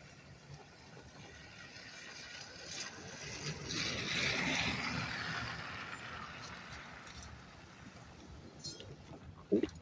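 A vehicle passing, its tyre rush swelling over a few seconds and fading away, with a short sharp knock near the end.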